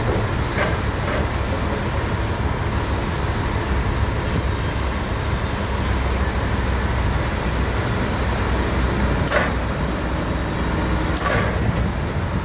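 Sawmill machinery running steadily with a low rumble, marked by a few brief sharp squeaks or knocks and a high hiss in the middle of the stretch.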